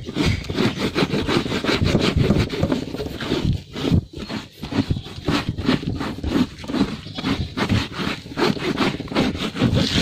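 Fabric car-seat upholstery wet with soap foam being scrubbed by hand, a quick back-and-forth rubbing at about four strokes a second.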